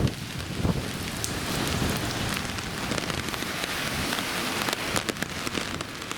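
Steady rain, a hiss with many small drops ticking on surfaces.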